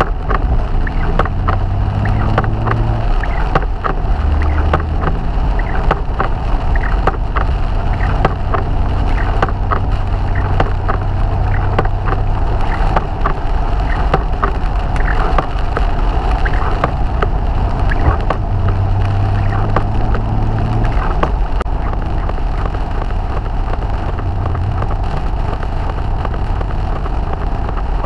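Triumph TR5's 2.5-litre straight-six engine running while driving on a wet road, heard from inside the car, with tyre and wind noise and rain ticking on the windscreen. The engine note shifts in pitch a few times as the speed changes.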